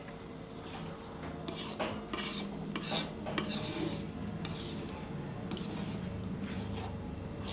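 Metal ladle stirring thick peanut sauce in a large aluminium pan, scraping and clinking against the pan, busiest about two to three seconds in, over a steady low hum.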